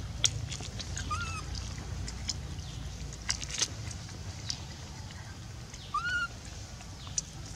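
Two short animal calls, each rising and then falling in pitch, about five seconds apart, over a steady low rumble with scattered light clicks.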